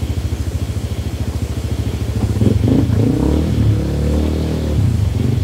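Motorcycle engine running at low speed with an even pulsing beat, then revving up and easing back down in the middle.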